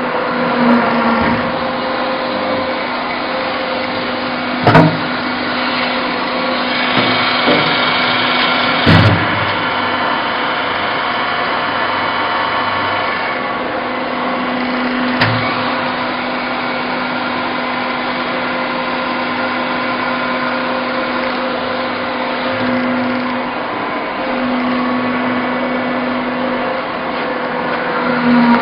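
Sawdust pallet-block making machine running with a steady hum. A few sharp knocks cut through it, about five, nine and fifteen seconds in.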